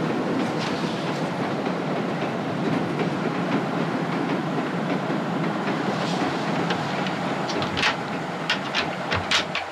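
Steady running noise of a moving passenger train heard from inside a sleeping car. Near the end comes a quick run of about five sharp metallic clicks and knocks as a compartment door's lever handle and latch are worked.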